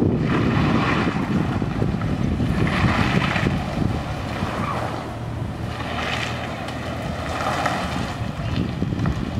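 A Dodge Charger police car driving a tight cone course, its engine and tyres surging several times as it accelerates between turns, under heavy wind buffeting on the microphone.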